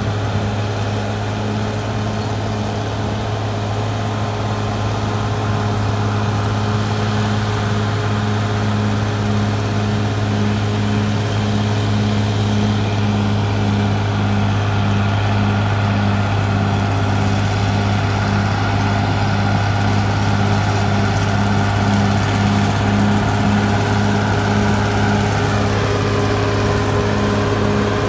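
Caterpillar D6R XL bulldozer's diesel engine running steadily, a low drone with a regular throb.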